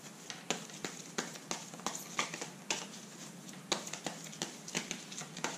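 Tarot cards being shuffled by hand: a run of light, sharp card clicks and slaps, about three a second, somewhat irregular.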